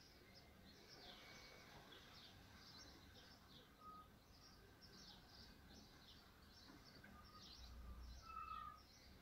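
Faint outdoor birdsong: small birds chirping over and over in short, high, falling notes, with a couple of clearer whistled notes. A soft low rumble comes in briefly near the end.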